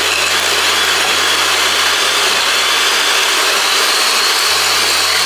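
Electric hand mixer running steadily at speed, its beaters whipping softened butter and vanilla icing sugar into buttercream frosting in a glass bowl.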